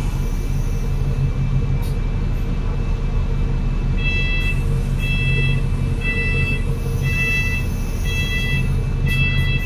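Cummins L9E diesel engine of an Enviro500 MMC double-decker bus running steadily, a low hum heard from the rear seats. About four seconds in, an electronic beeper starts sounding about once a second, six times.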